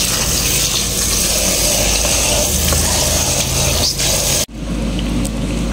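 Tap water spraying from a kitchen faucet aerator into a plastic basin of leafy greens as a hand swishes them. It cuts off abruptly about four and a half seconds in, giving way to a quieter steady hiss.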